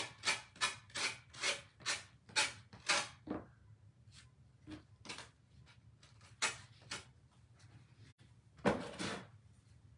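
Quick rubbing strokes of a small hand tool over the paper-covered edges of a craft piece, about three a second for the first few seconds, then a few scattered strokes with one louder one near the end.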